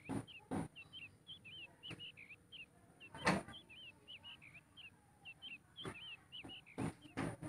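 A small bird chirping over and over, short curved high notes a few times a second, with scattered light clicks and knocks, the loudest knock about three seconds in.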